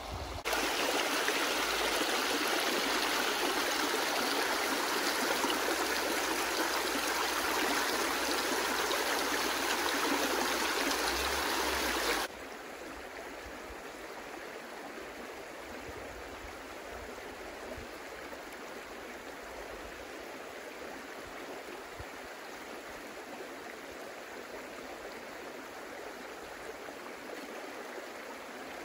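Small forest river rushing, a steady water noise. About twelve seconds in it drops abruptly to a quieter stream sound.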